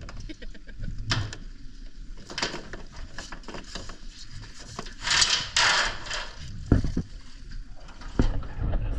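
Rope being handled over the gunwale of a small aluminium dinghy: rubbing and rustling with scattered clicks, a burst of hiss about five seconds in, and two knocks near the end.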